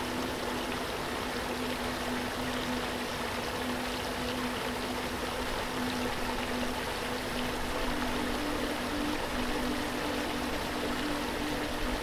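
Steady rush of water flowing over a cascading waterfall, with a faint low held tone underneath.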